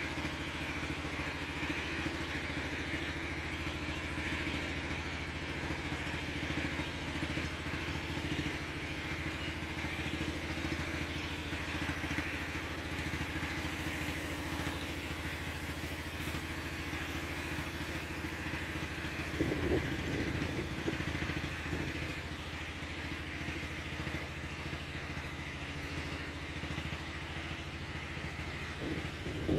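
Motorboat engine running steadily, a constant low drone with a higher rough hum over it. A brief louder burst of noise about twenty seconds in.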